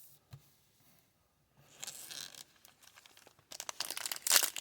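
Thin plastic crinkling and rustling as a trading card is slid into a soft penny sleeve. It is faint at first and becomes a dense, crackly crinkle from about three and a half seconds in.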